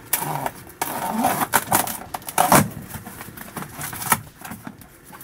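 A large cardboard shipping box being opened by hand: an irregular run of scraping, ripping and knocking cardboard as the flaps are pulled open, with a longer rasp about a second in.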